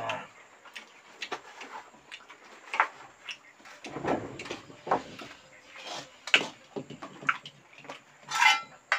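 Close-up eating sounds: chewing and mouth noises, broken by scattered light clicks and short bursts, with a brief hiss near the end.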